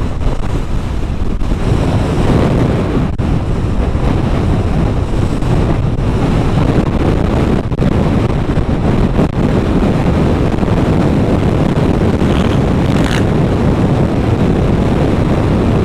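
Wind buffeting the microphone loudly, with an ATV engine running underneath; a brief higher-pitched sound comes about 13 seconds in.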